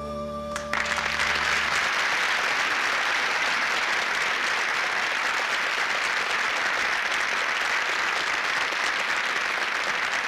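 The last held chord of the song's accompaniment dies away, and under a second in a studio audience breaks into loud, steady applause.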